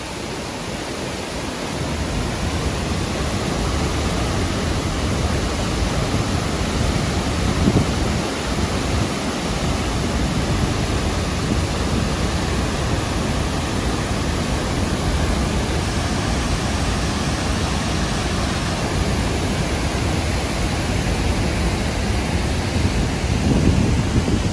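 Barron Falls in heavy flood after wet-season rain, heard close up from its base: a loud, steady rush of falling water and spray.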